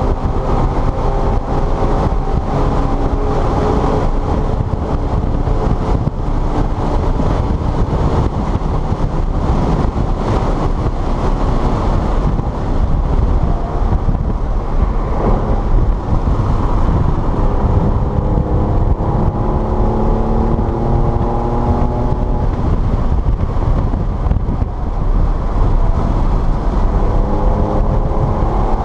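Car engine running hard on a wet race circuit, its revs climbing steadily through the second half, under a constant rush of wind and tyre noise.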